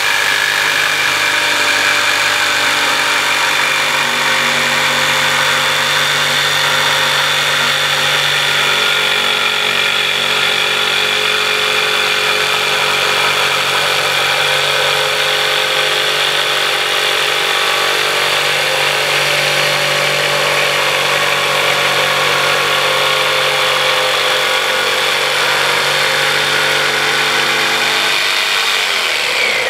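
Corded DeWalt jigsaw running steadily at full speed, its blade cutting along a marked line through a wooden plank a little over 3/4 inch thick. The motor starts to slow right at the end.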